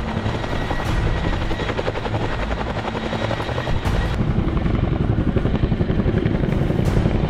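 Full-size Boeing Chinook tandem-rotor helicopter flying, its rotor blades beating in a rapid, steady pulse.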